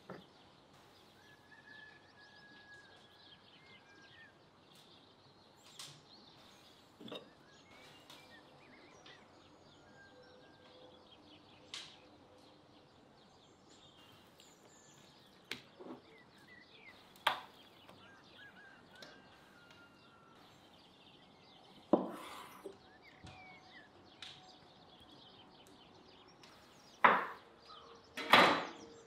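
Occasional sharp knocks and clinks, a few seconds apart and loudest near the end, over faint bird chirps.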